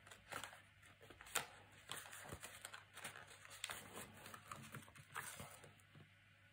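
Faint rustling and light taps of paper and card being handled as a patterned paper strip is slid under a card pocket flap and pressed into place, with one sharper tap about a second and a half in.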